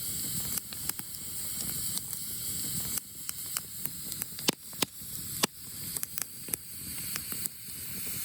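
Campfire of birch logs crackling, with a steady hiss and sharp pops that come more often and louder from about halfway on.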